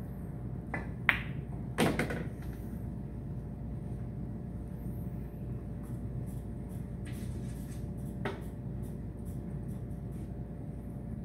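Pool shot: a sharp click of the cue tip on the cue ball about a second in, then a louder, ringing clack of billiard balls knocking under a second later. A fainter knock of the balls comes near the end, over a steady background hum.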